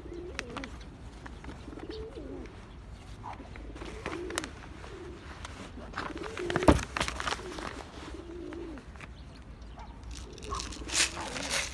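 Feral rock pigeons cooing over and over, their low calls rising and falling. Sharp clicks and knocks come in between, the loudest a little past halfway.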